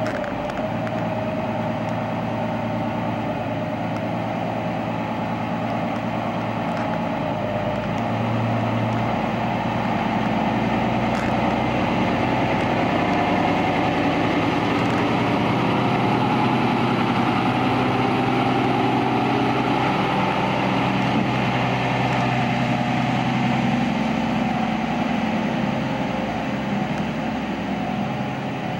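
Small diesel switcher locomotive's engine running steadily as it hauls a train of tank cars, the engine note shifting about eight seconds in.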